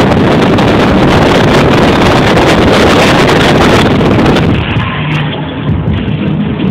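Loud, rough wind buffeting on a phone microphone inside a moving car. About four and a half seconds in it suddenly drops away to a quieter, steadier car noise.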